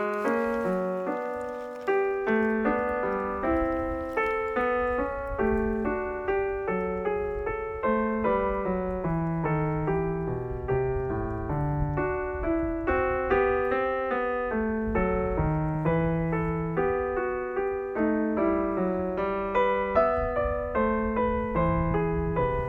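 Background piano music: a gentle melody of single notes, each struck and fading away, played at an even pace.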